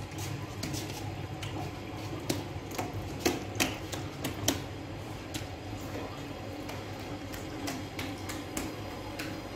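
Working noise in a Sangak bread bakery: a steady low hum with irregular sharp clicks and taps, several louder clicks coming between about two and five seconds in.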